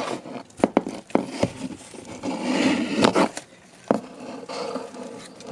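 Scattered sharp knocks and clicks with light scraping from handling in a tokay gecko's enclosure, with a short rush of noise about two and a half seconds in.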